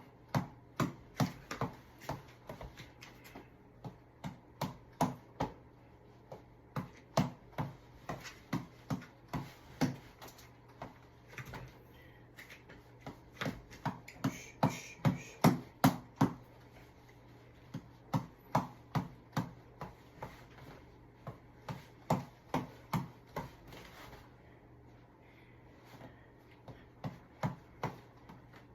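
Boxing reflex ball (tap ball) being punched in quick runs of sharp slaps, about two hits a second, with short breaks between runs.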